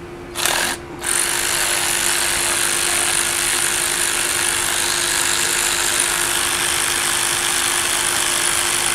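12-volt cordless electric ratchet wrench running under power, unscrewing a bolt from a steel machine panel. A short burst of the motor comes first, then from about a second in it runs steadily and without a break.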